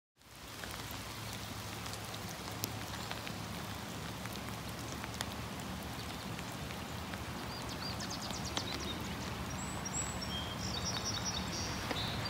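Outdoor ambience of steady light rain with scattered drips and a low rumble underneath. Short high bird chirps and trills come in over the last few seconds.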